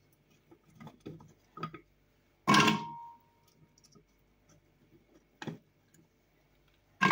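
Pieces of chopped carrot dropped into an empty glass blender jar: a few light clicks, then a loud knock about two and a half seconds in that leaves the glass ringing briefly, a single tap later on, and another ringing knock at the very end.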